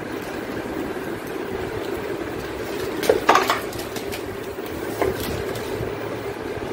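Clear plastic bag wrapping crackling and rustling as it is pulled and torn off a toy excavator, with a short run of sharp crackles about three seconds in and another about five seconds in, over a steady background hum.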